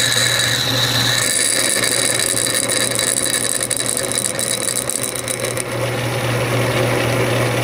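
Metal lathe running while a letter I twist drill bores into the end of the turned piston valve, a steady hum with a high cutting whine over it. The whine drops away about five and a half seconds in, leaving the lathe's hum.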